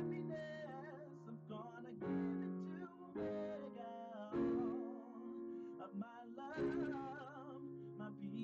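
Background music: a slow melody sung or played with heavy vibrato over sustained chords, in phrases of a second or two.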